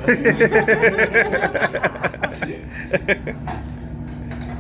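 A person laughing in quick rhythmic pulses for about two seconds, then fading into a steady low hum.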